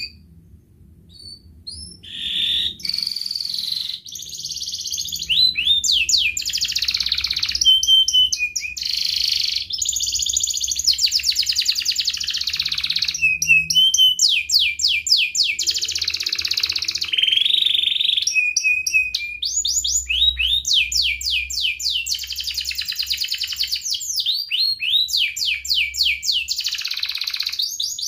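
Domestic canary singing a long, unbroken song: after a short chirp, from about two seconds in, fast trills and rolls of rapidly repeated notes follow one after another.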